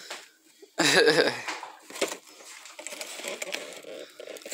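A short voiced sound, a brief word or exclamation about a second in, then faint handling noise as packages on a kitchen counter are moved.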